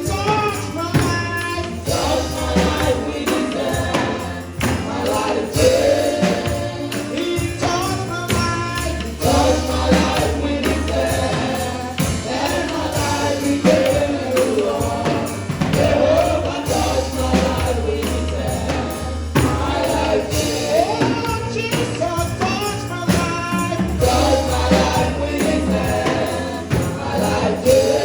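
Live gospel choir singing with band accompaniment: a tambourine keeps a busy beat over a bass line that changes note every few seconds.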